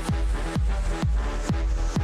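Electronic background music with a steady four-on-the-floor kick drum, about two beats a second, over sustained synth tones.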